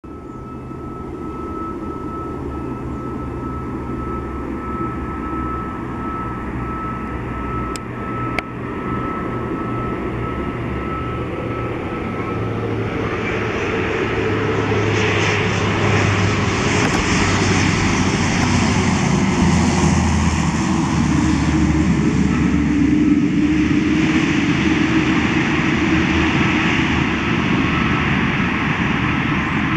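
Twin Pratt & Whitney PT6A turboprop engines of a Beechcraft King Air B350 coming in to land, growing steadily louder as the aircraft nears. Propeller and turbine hum, with a propeller note that drops in pitch as the aircraft passes by along the runway.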